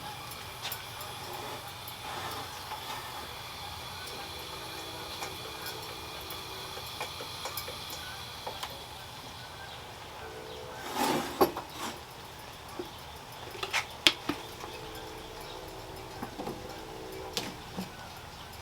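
A metal coffee pot and utensils clinking and knocking as the brewed coffee is handled, with several sharp clinks in the second half. Under them runs the steady hiss of a Coleman 502 camp stove burner.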